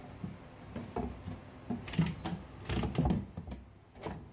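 A wire-mesh egg tray in a light frame being slid into an incubator cabinet and settled on its runners, giving a few knocks and scrapes, the loudest about two to three seconds in.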